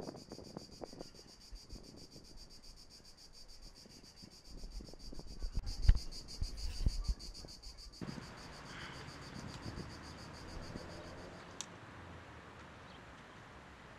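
A high, rapidly pulsing insect trill over the scrape and thud of a tortoise's feet and shell on gravel close by. The footsteps are loudest about six seconds in, as it passes. Both stop abruptly at about eight seconds, leaving a steady outdoor hiss.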